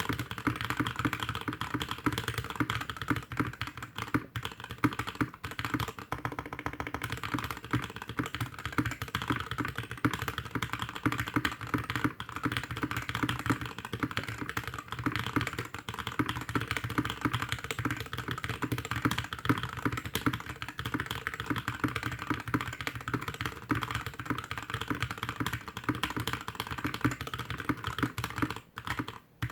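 Fast typing on a GK61X mechanical keyboard with Tecsee Blue Velvet linear switches, DSA keycaps and a stainless steel plate in a plastic case, sitting directly on a desk. It is a dense, continuous clatter of keystrokes with one brief pause near the end.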